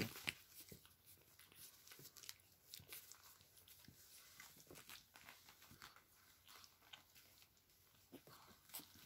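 Faint scuffling and rustling of young puppies playing and wrestling on puppy training pads: a scatter of small clicks and crinkles, one a little louder right at the start.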